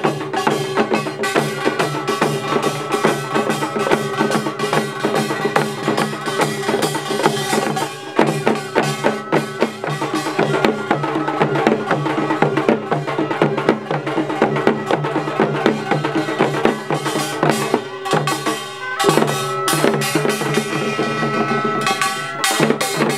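A Korean pungmul percussion band plays a fast, dense rhythm. The buk barrel drums and sogo hand drums are beaten rapidly over sustained ringing metal percussion, with brief breaks in the beat about 8 and 18 seconds in.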